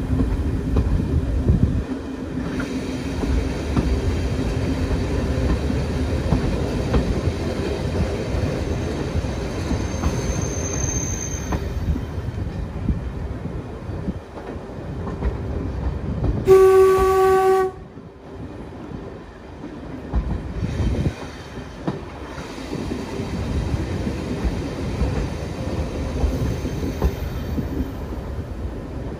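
Train hauled by a class 08 diesel shunter running along the track with a steady rumble and wheel clatter. About 16 seconds in a horn sounds once, for about a second, the loudest thing here.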